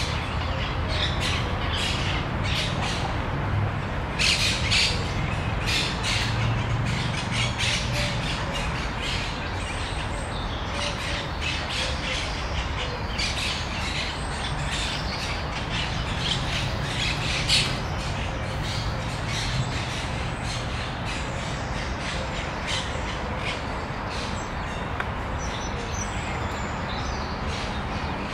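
Birds calling in quick runs of short calls, thinning out near the end, over a steady low rumble.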